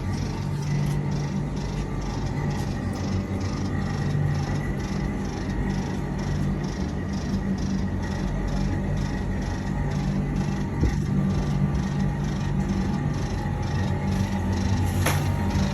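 York air-conditioning condenser unit running with a steady low electrical hum, and a light regular ticking about twice a second.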